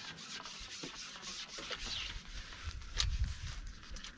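Rubbing and rustling with scattered small clicks, and a low rumble and a sharper knock about three seconds in.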